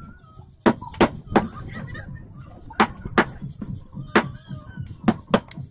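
Kitchen knife chopping through cooked chicken on a plastic cutting board: about nine sharp knocks of the blade hitting the board, in irregular succession.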